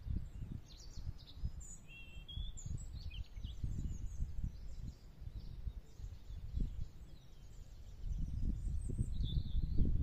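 Wind buffeting the microphone in uneven gusts, stronger for the last couple of seconds, with small birds chirping in short high calls.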